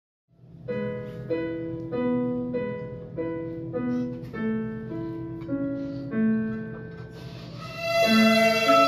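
Piano accompaniment playing an introduction of evenly spaced notes, about three every two seconds. About eight seconds in, a class of young violinists comes in, louder and brighter.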